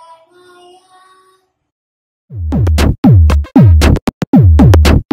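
A child's sung stotra line trails off faintly in the first second and a half. About two seconds in, loud electronic music starts: deep drum-machine bass hits that drop in pitch, chopped into short stuttering pulses with brief gaps.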